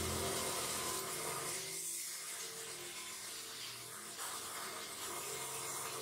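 A steady hissing noise from running machinery, with no clear strokes or impacts.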